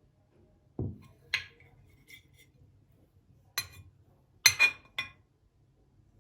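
Glassware and dishes being handled and set down: a dull knock about a second in, then a ringing clink, and a quick cluster of sharp clinks near the end.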